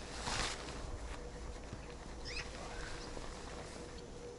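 Faint outdoor ambience: a brief rustle at the start, a steady faint hum and low rumble, and a couple of short high chirps about two seconds in.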